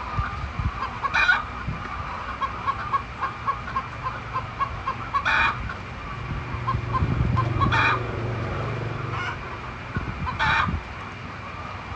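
Chickens clucking in a steady run of short notes, about two or three a second, broken by four brief, louder squawking calls.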